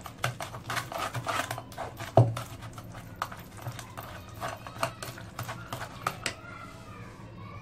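A spoon scraping and tapping against a stainless-steel mesh strainer as custard apple pulp is worked to separate out the seeds: quick, irregular scrapes and clicks, with one sharper knock about two seconds in.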